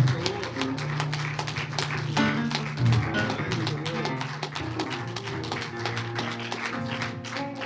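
Worship band playing softly without singing: strummed guitar over held bass notes, with light tapping percussion.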